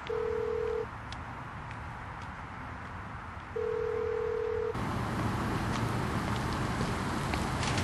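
Telephone ringback tone after a number is dialled: a steady beep sounding twice, the second one longer. About five seconds in it gives way to the steady hum of street traffic.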